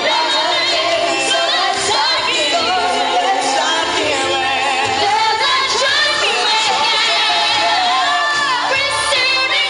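Singing over musical accompaniment, with vibrato on long held notes in the second half.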